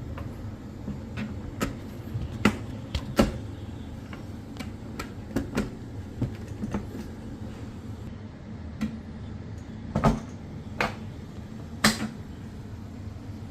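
Irregular sharp knocks and clicks, about fifteen in all, as of hard objects being handled and set down, over a steady low rumble.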